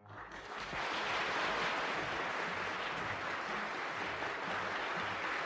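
A hall full of people applauding together. The applause swells up over the first second and then holds steady.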